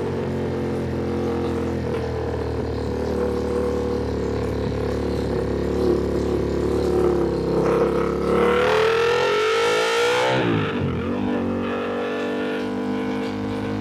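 Ducati Panigale V2 twin-cylinder sportbike engine heard onboard, running at a steady pitch, then revving up for a few seconds with rising wind rush. About ten seconds in the revs drop sharply and dip, then the engine settles back to a steady note.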